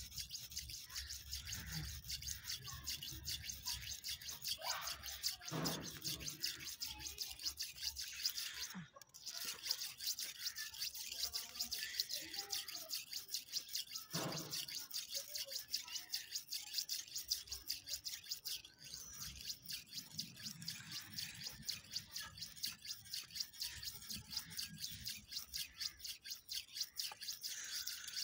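Steel knife blade being stroked back and forth over a wet red sharpening stone: a fast, even rhythm of gritty scrapes, several strokes a second, with a brief pause about nine seconds in. The edge is being ground on one side, before any burr has formed.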